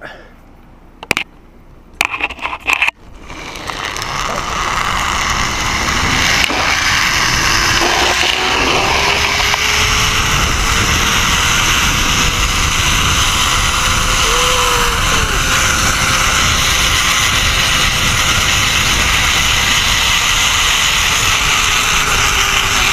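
Zipline trolley pulleys running along the steel cable: a loud, steady rushing whir that builds over a few seconds and then holds, with a faint hum that slowly rises and falls. A few sharp clicks come just before the run starts.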